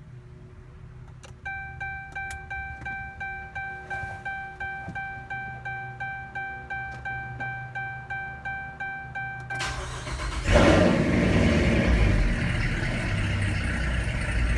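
A dashboard chime repeats evenly, about three tones a second, for about eight seconds; then, about ten seconds in, the 2014 Dodge Charger R/T's V8 cranks, catches and settles into a loud idle. The owner traces the car's rough, low idle to the throttle position sensor reading too low a voltage.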